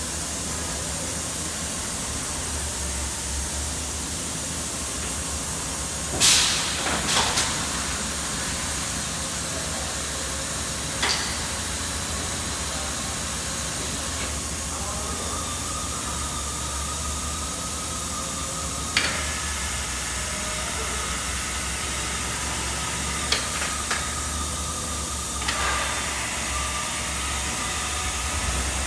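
Thermoforming machine running, with a steady hum and hiss, several sharp bursts of air venting (the loudest about six seconds in) and a steady high whine that sets in about halfway.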